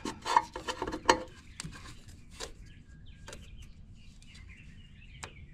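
A few sharp clicks and clinks in the first second or so from hands working loose an O2 sensor's wiring plug. Faint bird chirping follows in the second half.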